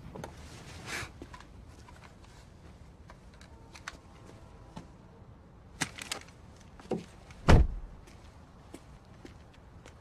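Car interior sounds: scattered small clicks and rustles, a seatbelt buckle clicking a little past halfway, then a car door shutting with a heavy thud, the loudest sound.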